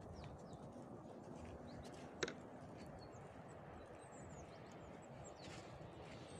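Faint outdoor ambience: a steady low rush with small birds chirping high and often, and one sharp click a little over two seconds in.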